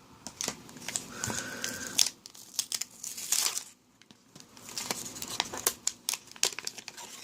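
Packaging being handled and opened: crinkling and rustling plastic and cardboard with scattered clicks and taps, and a short squeak about a second in.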